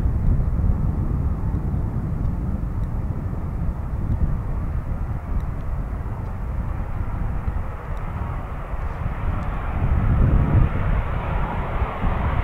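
Embraer E195-E2 airliner's Pratt & Whitney PW1900G geared turbofans at takeoff power during the takeoff roll: a steady jet rush over a deep rumble, growing brighter and louder over the last few seconds as the aircraft comes closer.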